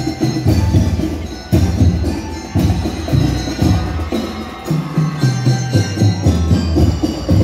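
School drum and lyre corps playing live: marching drums beating under the ringing tune of bell lyres.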